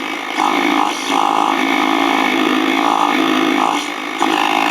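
A 1980s Electrobrand stereo putting out an awful, loud noise of steady pitch through its speakers as it is powered up for a test after rewiring, dipping briefly a few times.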